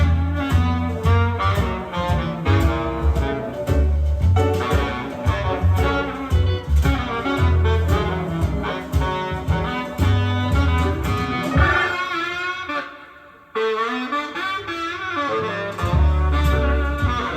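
Instrumental swing jazz with saxophone and upright bass, played back through the Akai GX-9 cassette deck during a recording test. The band drops to a brief near-quiet break about thirteen seconds in, then comes back in.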